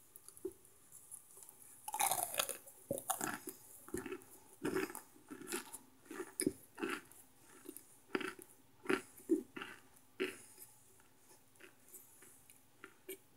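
Close-up chewing of crunchy microwaved cornstarch chunks: a loud bite about two seconds in, then a steady run of crunches about two a second, thinning to softer chewing near the end.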